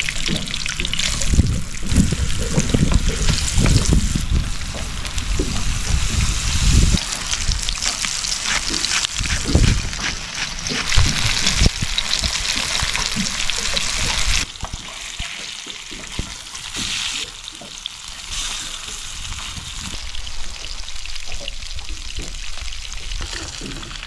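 Fish fillets sizzling in hot oil in a frying pan on a portable gas stove, a steady hiss that drops in level a little past halfway. Low rumbles run under the sizzle over the first several seconds.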